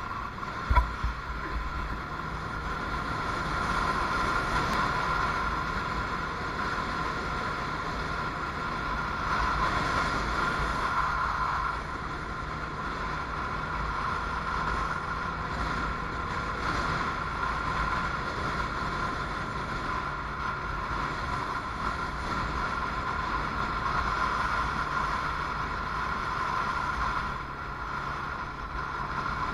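Can-Am Outlander Max ATV running steadily while driving over dune sand, with wind buffeting the microphone. A sharp knock about a second in.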